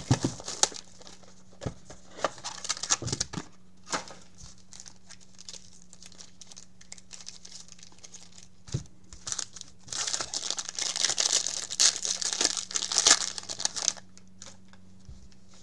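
A 2019 Topps Tier One baseball card box and its pack wrapper being torn open by hand. Scattered clicks and taps come in the first few seconds, then a long stretch of plastic wrapper crinkling and tearing from about ten to fourteen seconds in, over a faint steady hum.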